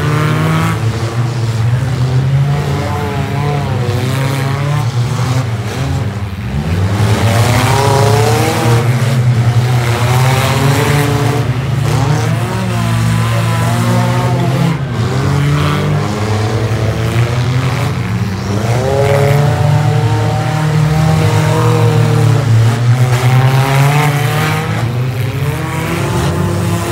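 Several figure-8 derby cars' engines running hard on a dirt track, their pitch climbing and dropping again and again as the cars accelerate and back off through the turns.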